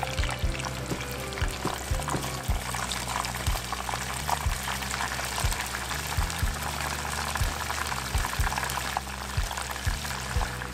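Battered shrimp deep-frying in a saucepan of hot oil: a dense, steady bubbling and crackling. Background music with a steady beat plays underneath.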